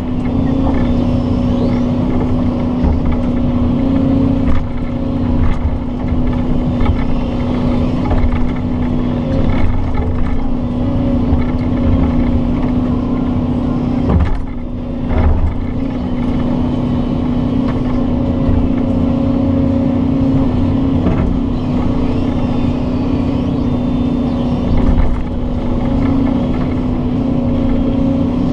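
Doosan excavator's diesel engine and hydraulics running steadily under work with a strong hum, with a few short knocks midway and near the end as the boom and bucket move.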